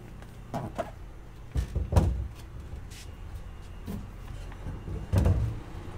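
Pizza Party Ardore gas pizza oven being set back down and turned around on a wooden table: a few dull knocks and thuds of its steel legs and body against the wood, the loudest about two seconds in and another near the end.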